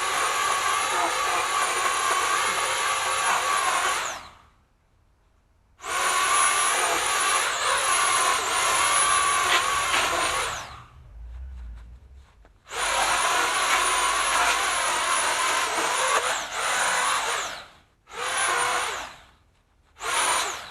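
Chainsaw cutting palm fronds in five bursts of a few seconds each, its high whine dipping briefly as the chain bites; between bursts it stops completely.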